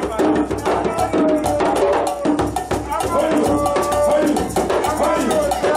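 Live hand-drum music: djembe-style drums struck by hand in a fast, busy rhythm with rattling small percussion, and a wavering melodic line rising and falling above the drums.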